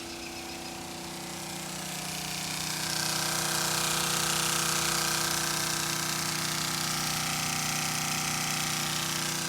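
An engine running at a steady speed, growing louder about two to three seconds in and then holding.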